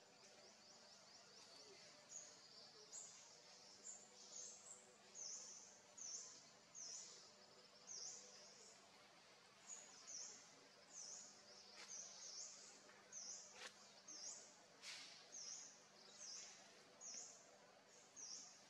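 Faint, high-pitched chirps from a bird in the background, one short note repeated about one and a half times a second, over steady outdoor background noise. A few brief sharp clicks come through near the middle.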